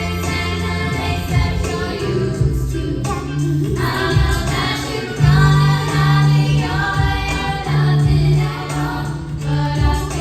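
Music: a song with several singing voices over sustained bass notes.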